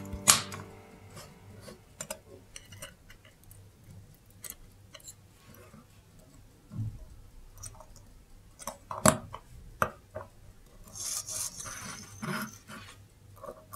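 Small clicks, taps and scraping of watchmaker's tools and parts on a mechanical clock movement, with a sharp click at the start, two more about two-thirds in, and a stretch of scraping near the end.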